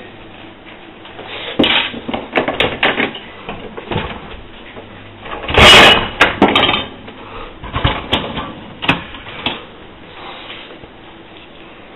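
Zanussi DA 4341 dishwasher being opened and its loaded racks handled: a run of clunks and clatters from the door, the wire racks and the dishes, the loudest burst about halfway through.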